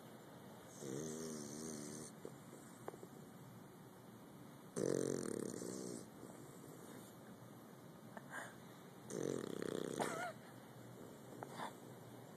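A bulldog snoring: three snores about four seconds apart, each lasting about a second, the middle one loudest.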